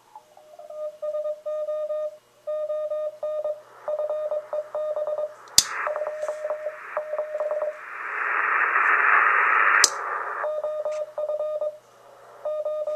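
Morse code received on a 40-meter ham transceiver, a keyed tone of about 600 Hz in dits and dahs, passed through a switched-capacitor CW audio filter. Midway, a hiss of band noise fills in under the tones for about four seconds, between a sharp click and a second click, then the tone is heard clean again.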